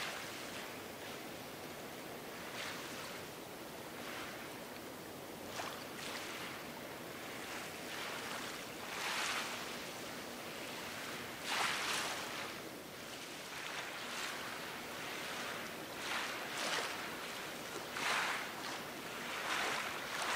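Small waves lapping and splashing at the water's edge, in irregular washes every second or two over a steady watery hiss.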